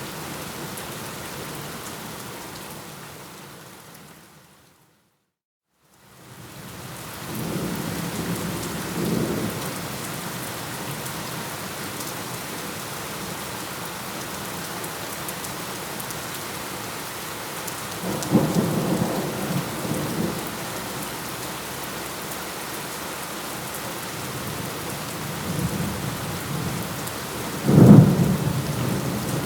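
Steady heavy rain that fades out to silence about five seconds in, then fades back in with rolling thunder. There are three rumbles of thunder, and the last one, near the end, is the loudest and sharpest.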